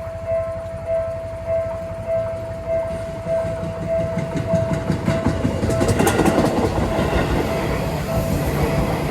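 Japanese railroad crossing bell ringing in steady pulses, under the rumble and wheel clatter of a Seibu train that approaches and passes, loudest about six seconds in.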